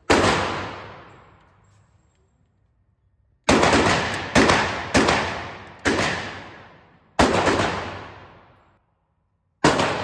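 Pistol shots echoing in an indoor shooting range: seven sharp reports, each with a long fading reverberation. One comes right at the start, five follow about a second apart after a pause of some three seconds, and one comes near the end.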